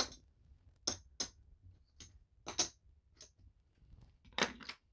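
Casino chips clacking together as they are picked up and stacked by hand: a scatter of sharp clicks about a second apart, with a louder double clack near the end.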